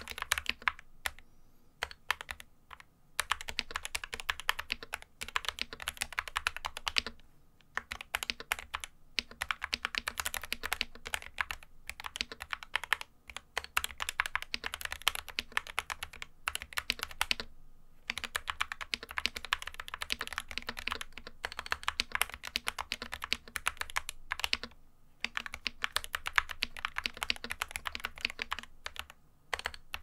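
GamaKay MK61 mechanical keyboard with spray-lubed Gateron Optical Yellow linear switches being typed on at a steady pace on a desk mat: fast runs of key clacks broken by brief pauses.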